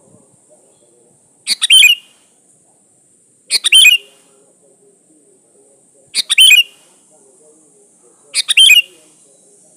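Sooty-headed bulbul calling: four short, loud phrases spaced about two to two and a half seconds apart, over a faint steady high hiss.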